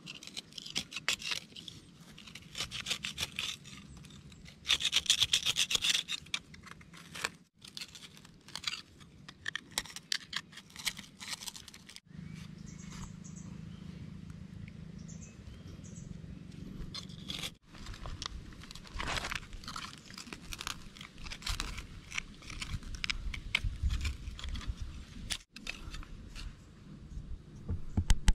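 A small pruning saw blade scraping and digging into dry, crumbly soil around a sapling's roots, in bursts of quick, crunching strokes.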